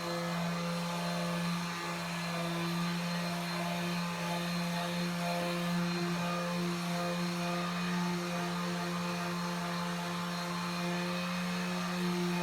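Electric power sander running steadily on painted plywood, a constant low hum with fainter tones above it.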